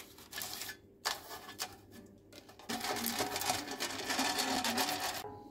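Parchment paper rustling as it is pressed into a metal loaf pan, then a silicone pastry brush scrubbing briskly over the paper-lined pan for about two and a half seconds, stopping just before the end.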